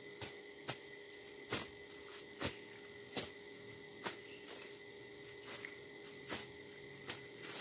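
Sharp, short strokes of weeds being cut, coming irregularly about once a second, over a faint steady hum of insects.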